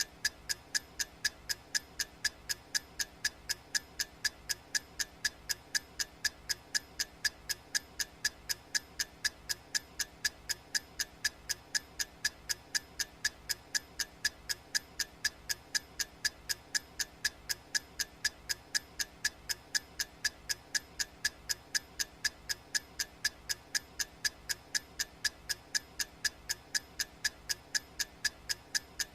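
Clock ticking sound effect: sharp, evenly spaced ticks, several a second, going on without a break.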